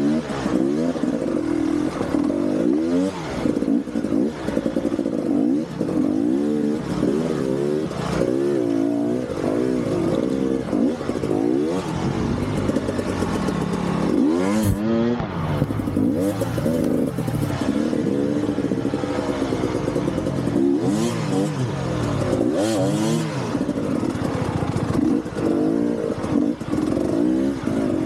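Enduro motorcycle engine revving up and down over and over as the throttle is worked, with some clatter.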